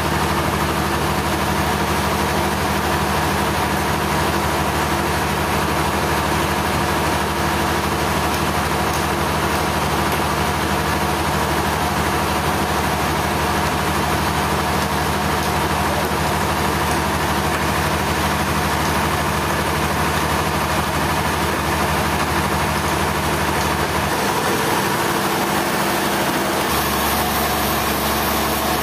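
Engine running steadily at an even speed, its low hum dropping away briefly about 24 seconds in and returning near the end.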